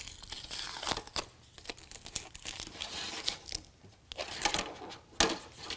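White plastic tube scraping and rustling as it is drawn out of the spiral track in a RetraxPRO XR tonneau cover's clear plastic canister end, in irregular bursts. A few sharp plastic clicks come near the end.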